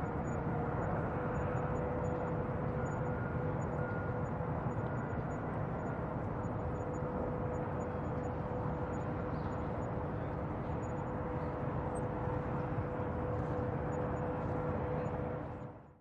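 Bayside ambience recording: a steady low rumble with a constant mid-pitched hum over it. It fades out sharply right at the end.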